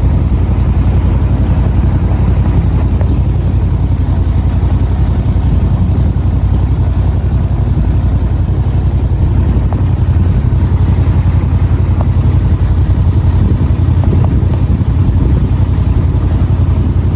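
Boat motor running steadily under way, a loud, even low rumble.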